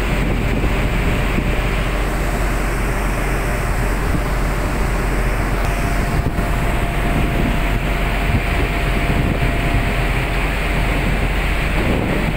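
Steady rush of wind on the microphone and sea noise over the low drone of a supply boat's engine. A faint steady whine comes in about halfway through.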